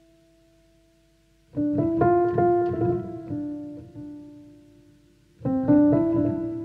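Background piano music: a faint held note, then a phrase of piano notes entering about a second and a half in and fading, and another phrase near the end.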